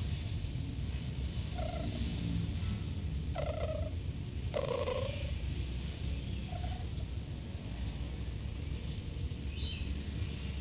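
Civet snoring in its sleep: short snore sounds come every second or two over a steady low hum.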